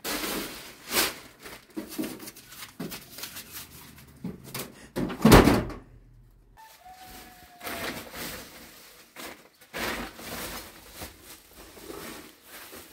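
Rustling and knocking as cloth and bedding are pulled out of a metal trunk and dropped on the floor, a run of short sudden handling sounds with one loud thump about five seconds in.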